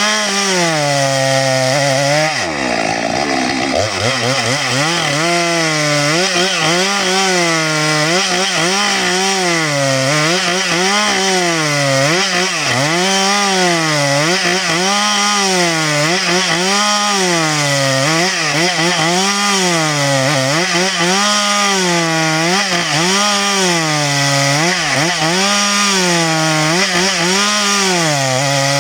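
Stihl MS 462 two-stroke chainsaw running hard while cutting wood. The engine pitch rises and falls in a steady rhythm about every second and a half as the load on the chain comes and goes, with a deeper dip about three seconds in.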